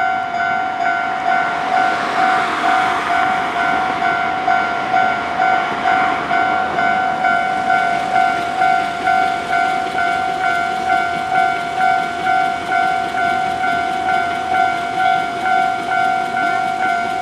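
Japanese level-crossing warning bell ringing, a steady electronic ding repeating a little under twice a second. A swell of rushing noise rises and fades about two to six seconds in.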